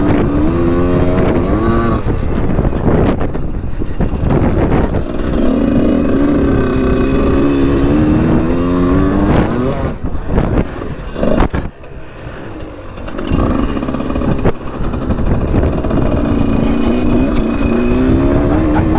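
Husqvarna SMS 125 dirt bike engine revving up and backing off repeatedly as it is ridden around a track, with gusty wind noise on a helmet-camera microphone. The throttle drops off briefly a little past the middle, then the engine revs up again.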